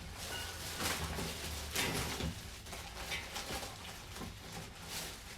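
Cardboard box and packing being handled and opened: a few short scraping rustles, with a low steady hum underneath.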